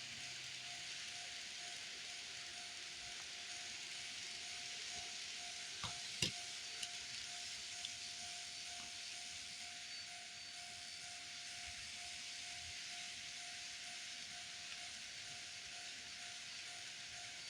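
A model railway level-crossing warning sounding, a steady tone pulsing at an even rate, over a steady hiss. A few sharp clicks come about six seconds in.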